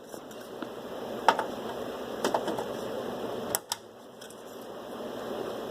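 RAM sticks being pressed into the DIMM slots of a workstation motherboard, the slot retention clips snapping shut in several sharp clicks. The clicks come about a second apart, with a pair close together a little past halfway, over steady handling rustle.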